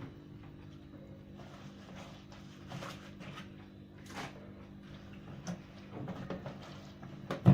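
Rustling and light knocks as wet clothes and the plastic parts of a twin-tub washing machine are handled, over a steady low hum, with one sharp knock near the end.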